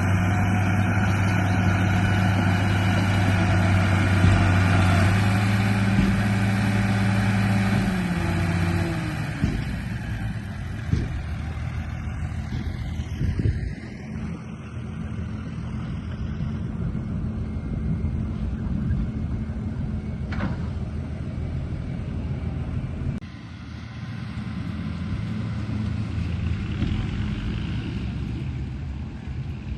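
A radio-controlled model truck's motor running with a steady hum that steps up in pitch about six seconds in and cuts off around nine seconds. It is followed by rougher, quieter running with scattered knocks.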